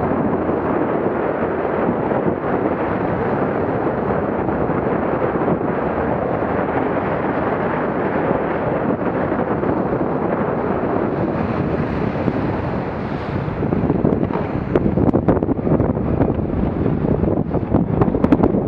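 Wind buffeting the microphone over the rush of water along a small motorboat's hull under way. From about fourteen seconds in it turns gustier, with sharper knocks and splashes as the boat slows.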